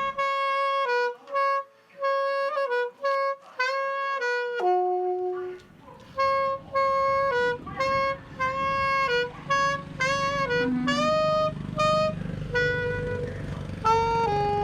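Background music: a solo wind-instrument melody of held notes. About five seconds in, a low steady layer joins it underneath.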